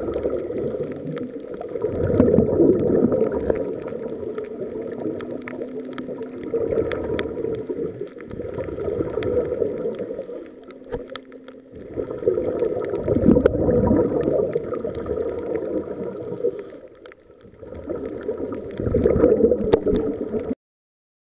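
Scuba breathing heard underwater through the camera housing: muffled gurgling rushes of exhaled regulator bubbles that swell every five to six seconds. A faint steady hum comes in twice in the middle, and the sound cuts off suddenly just before the end.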